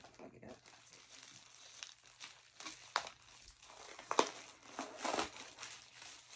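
Plastic mailer bag crinkling and rustling as it is cut open and handled, with a couple of sharper crackles about three and four seconds in.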